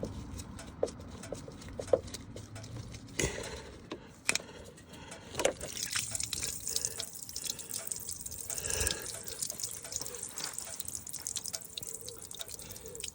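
Trapped water draining and dripping out of a 2016 Mercedes E400 coupe's body through its opened jacking point: the water whose sloshing was the source of the car's noise. A few sharp knocks come in the first few seconds.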